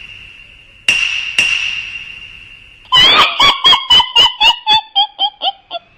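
Two sharp strikes, each ringing on with a high metallic tone. Then a rapid run of high, pitched pulses, about four a second, that drop slightly in pitch and fade toward the end: a creature's chattering cackle.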